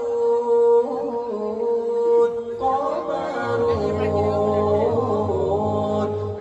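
Male a cappella nasyid group singing into microphones: one voice holds a long note while others sing held harmony beneath it. A low bass voice comes in about three and a half seconds in.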